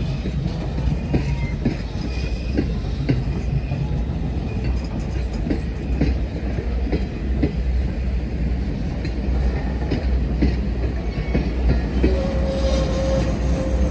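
Norfolk & Western 611, a J-class 4-8-4 steam locomotive, working a passenger train: a steady low rumble with regular beats about twice a second. A steady tone comes in near the end.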